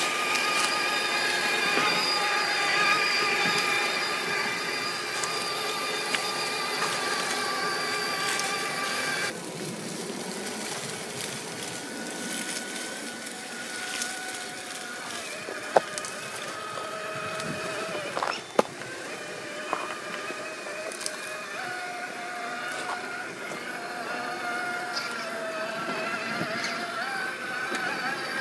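Electric drive motor and gearbox of an Axial SCX6 1/6-scale RC rock crawler whining as it crawls. The pitch steps up and down with the throttle, and the tyres on rock give a couple of sharp knocks in the second half.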